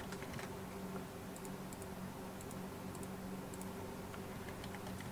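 Scattered light clicks of a computer keyboard and mouse as dimension values are typed into CAD software, over a steady low hum.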